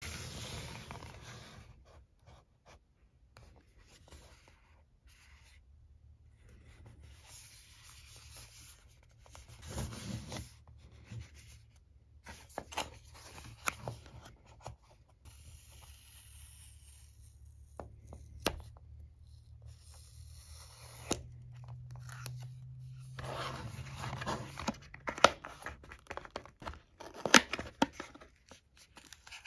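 Fingers handling a small cardboard box: rubbing and scraping on the card with scattered sharp clicks, then denser scraping and clicking about three quarters of the way through as the tuck flap is picked and pulled open. A faint steady low hum runs underneath.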